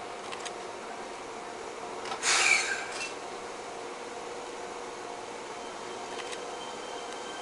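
Fukuoka City Subway 1000-series train standing at the platform, its equipment giving a steady hum with faint steady tones. A little over two seconds in comes a short, loud burst of hiss lasting about half a second.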